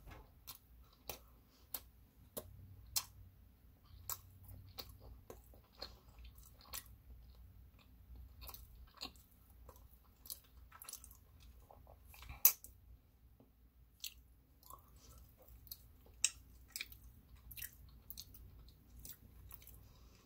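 A person chewing a mouthful of peanut butter sandwich on soft white bread, close to the microphone: irregular wet clicks and smacks of the mouth, with one sharper click about twelve seconds in.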